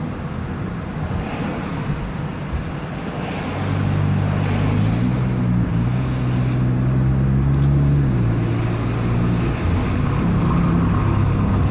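Honda Fit Hybrid on the move with a rush of wind and road noise. About three and a half seconds in, its engine note, through a Kakimoto aftermarket muffler, comes in and grows louder, holding a steady low hum with a couple of small steps in pitch.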